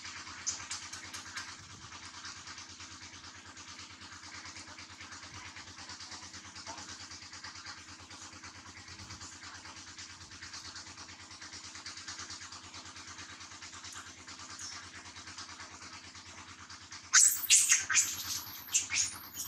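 A steady low hum and hiss, then near the end a baby long-tailed macaque breaks into a run of loud, high-pitched shrieking cries.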